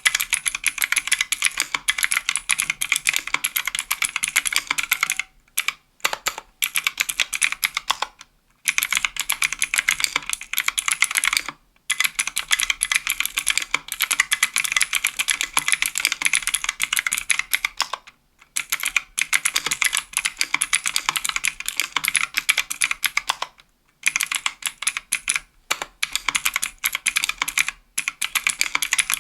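Fast continuous typing on a mechanical keyboard with Kailh Pro Light Green clicky switches in an aluminum-plate, aluminum-case 60% board, each keystroke a sharp click, with brief pauses every few seconds.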